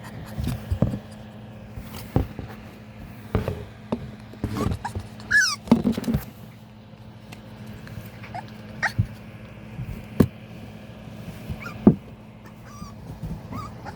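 Husky puppies whimpering and squeaking in short, high, falling cries, with scattered knocks and thumps. A steady low hum runs underneath.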